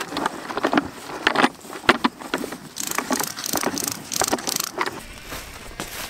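A calf nosing in a plastic feed bucket, with irregular knocks and rustling, then about six quick hissing squirts from a spray bottle about halfway through, fly spray being put on the calf to keep the flies off.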